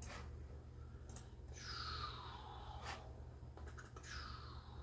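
A trading-card box and its wrapping being opened and handled: a few light clicks and two longer peeling or rustling sounds that fall in pitch, one near the middle and one near the end.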